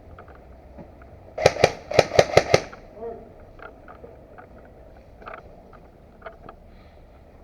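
Airsoft gun firing a quick string of about six or seven shots in just over a second, then only small scattered clicks.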